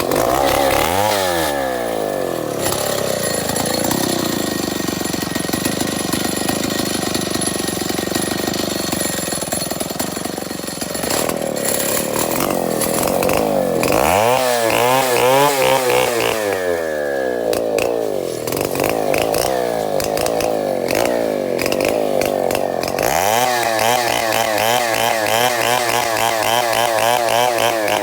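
Two-stroke chainsaw running hard throughout. It revs up several times, and its pitch sags and holds lower for long stretches, as when the chain is loaded in a cut through the Obaayimawre wood. It climbs high again about three quarters of the way through.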